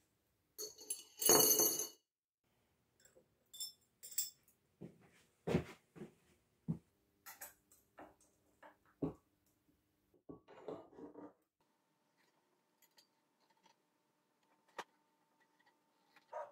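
Thick silver wires clinking and rattling as they are handled and clamped in a steel bench vise: a loud rattle about a second in, then scattered clicks and knocks of metal on metal.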